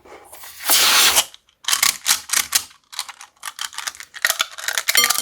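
Beads spilling out of a cut-open bead-filled balloon into a bowl: a short rush about a second in, then many quick, irregular clicks and rattles.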